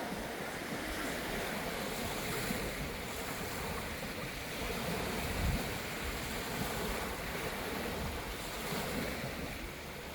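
Waves washing in on a beach: a steady hiss of surf, with wind buffeting the microphone in low gusts, strongest about halfway through.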